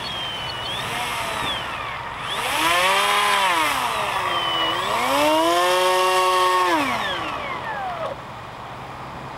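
RC model F-14 Tomcat jet's electric ducted fans whining as they are throttled up and down, in two surges that rise and fall in pitch, then drop back to a low idle hum near the end.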